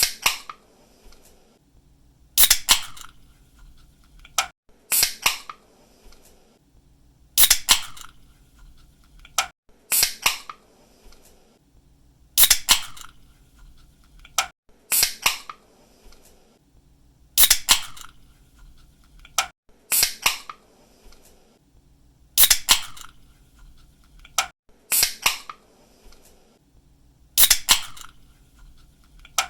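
Aluminium soda or energy-drink can being opened by its pull tab, over and over: a faint tick, then a sharp double crack and a short fizz, repeating evenly about every two and a half seconds, about twelve times.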